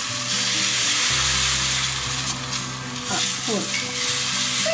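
Dosa batter sizzling on a hot tawa over a high flame as it is spread in circles with the back of a ladle; a steady hiss with the ladle scraping across the pan.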